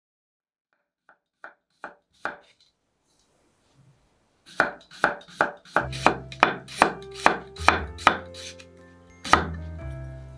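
Kitchen knife slicing a cucumber into thin rounds on a wooden cutting board: a few soft taps, then a steady run of crisp cuts about three a second, with one last cut near the end.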